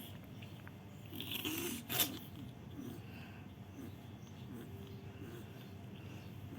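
A cat's faint mewing, soft wavering cries. A short rustle ending in a click comes about two seconds in.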